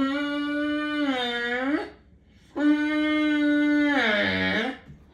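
Great Dane whining in two long, drawn-out cries, each sliding down in pitch at its end, with a short pause between them: the dog begging for ice.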